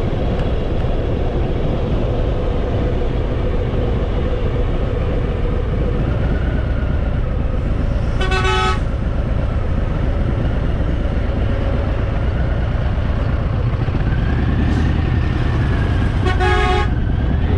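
Harley-Davidson Fat Boy V-twin engine running with a steady rumble, and a horn sounding two short toots, one about halfway through and one near the end.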